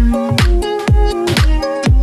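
Electronic dance music with a deep, pitch-dropping kick drum about twice a second under held synth melody notes.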